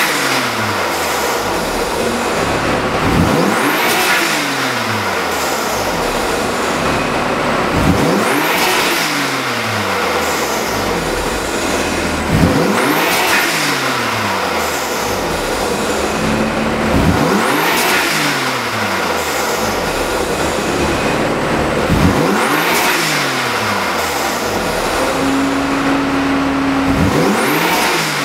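BMW M4 twin-turbo straight-six revved again and again, about every four to five seconds. Each rev rises and falls with a high turbo whistle climbing and dropping through the open front-mount intake, followed by a blow-off release as the throttle is let off.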